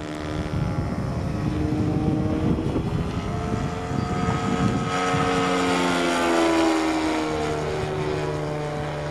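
Engine and propeller of a radio-controlled model P-51 Mustang droning in flight. Its pitch climbs and then drops about two-thirds of the way through as the model goes past.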